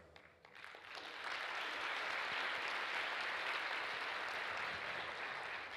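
Theatre audience applauding. The applause builds over the first second, holds steady, and starts to thin out near the end.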